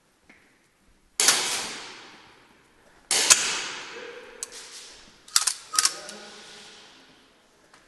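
Four sharp bangs echoing through a large warehouse hall: one about a second in, one about three seconds in, and two close together about five and a half seconds in, each dying away over a second or two.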